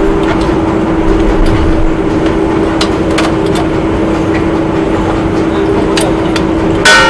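Steady machinery noise with a constant hum and a few light metallic clicks as a wrench works the bolts of a steel concrete-pipe mould. Near the end comes one loud clang of metal on the steel mould that rings on.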